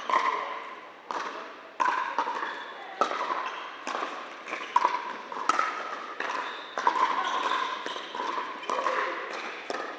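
Pickleball paddles striking a hard plastic ball, a string of sharp pocks roughly once a second, each ringing on in a large indoor hall.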